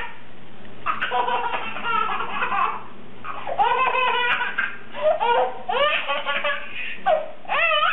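A baby laughing in a string of repeated bursts that begin about a second in, each a run of high, rising-and-falling laughs, with a faint steady hum underneath.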